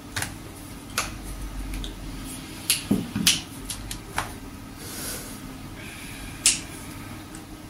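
Scattered small clicks and taps with a soft thump about three seconds in, from objects being handled on a table in a small room.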